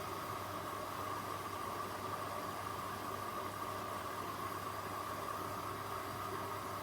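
Blomberg LWF194520QW and Hoover H3W04105TARR4-80 washing machines running a wash cycle: a steady hiss with a low hum.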